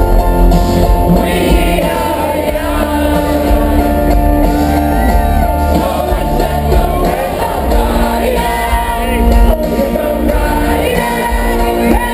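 Live band playing loud pop-rock through a festival sound system, with a lead singer and shouting from the crowd.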